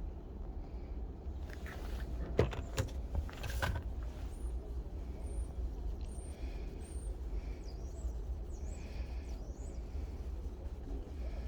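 Steady low rumble with a few light clicks about two and a half to four seconds in, from a titanium wheel bolt and its anti-seize being handled. Short high chirps come later.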